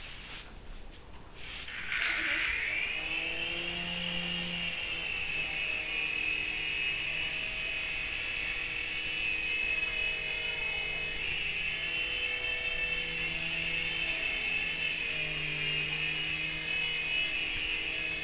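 Small electric RC helicopter's motors and rotor blades spinning up about two seconds in, the pitch rising quickly, then a steady high-pitched whine as it lifts off and hovers.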